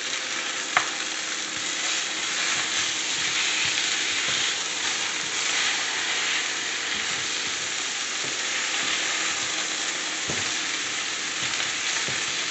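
Chicken leg quarters sizzling steadily in hot oil in a frying pan as they brown, with one sharp click about a second in as the pieces are turned with tongs.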